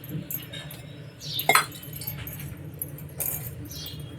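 Steel kitchen vessels and a measuring cup clinking and knocking against each other, with one louder clatter about a second and a half in.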